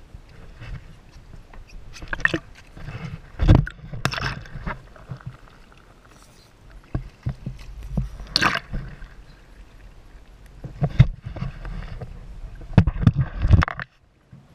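Water sloshing and slapping against a boat hull, mixed with irregular bumps and knocks of the camera being handled, over a low rumble. The sound cuts off abruptly near the end.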